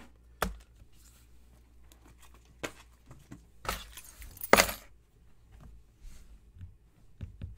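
Clicks and clinking rattles of small hard objects being handled, with the loudest rattle about four and a half seconds in.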